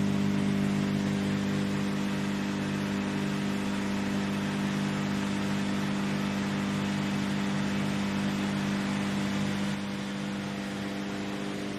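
Tractor engine held at about 1490 RPM, turning a PTO-driven woodchipper, with a steady, even hum. It gets slightly quieter about ten seconds in.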